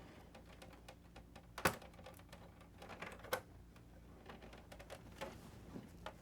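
Scattered light clicks and taps of hands working at a PlayStation 5's internal metal shield and casing, with two sharper clicks, one a little under two seconds in and one just over three seconds in.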